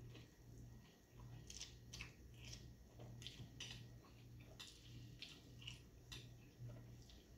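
Faint crunching and chewing of a crisp taco shell, a string of short crisp crunches about once or twice a second.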